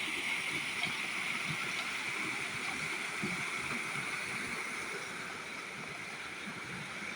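Salmon River waterfall: a steady rush of falling and flowing water.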